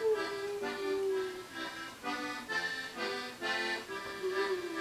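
Melodeon playing a waltz, with a dog howling along: one long howl that slides down in pitch and holds a low note, dying away about a second and a half in, while the melodeon chords carry on.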